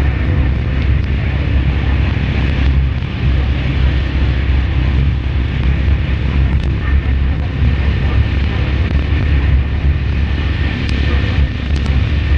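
Steady rain: a constant rushing noise with a heavy low rumble and scattered faint ticks.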